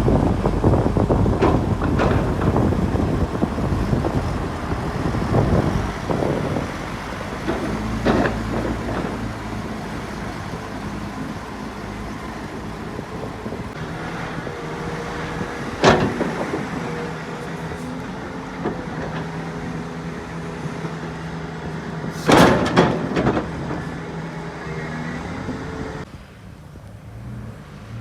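Heavy diesel earthmoving machinery running steadily, with two loud metallic clanks about halfway through and again later. A rougher, noisier rumble at the start settles into a steady engine tone.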